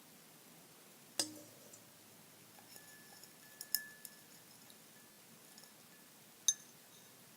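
A utensil clinking against a cup while borax solution is stirred for slime: a sharp knock about a second in, a cluster of light clinks with a faint ringing tone around the middle, and one more sharp clink near the end.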